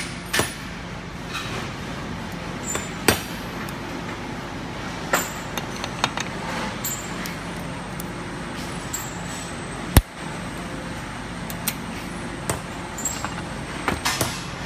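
Sharp metallic clicks and clinks from steel forming-head parts and hand tools being handled, including circlip pliers at a retaining ring. They come every second or two, the loudest about ten seconds in, over a steady hum in the background.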